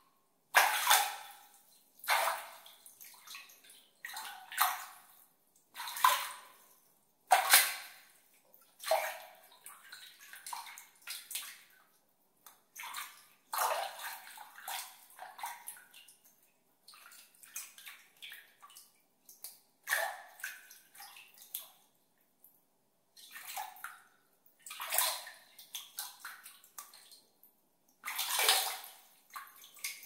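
Water being splashed and sloshed by hand, in irregular splashes every second or two, some louder than others, with smaller splashes and drips between.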